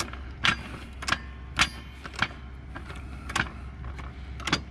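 Hydraulic floor jack being pumped, its handle and linkage giving a sharp metallic click with each stroke, about every half second, as the saddle rises.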